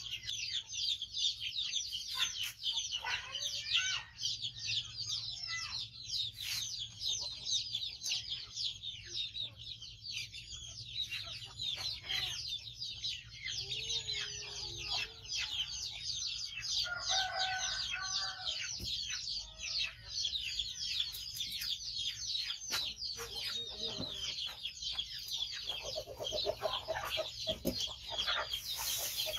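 Chickens: a continuous, dense chorus of high, quick peeping, with a few lower clucks now and then.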